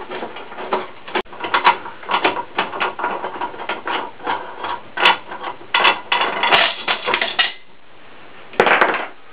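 Nuts and bolts being worked loose by hand from the metal top plate of a homemade clay mixer: irregular metallic clinks and rattles. After a short pause near the end, a bolt and nut clink as they are set down on the tabletop.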